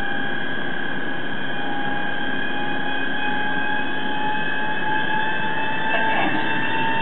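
Czech Railways electric locomotive whining as it gets under way with its train, several high tones held together over a hiss. One tone grows stronger about two seconds in, and faint rising glides come in near the end as the train starts to pull away.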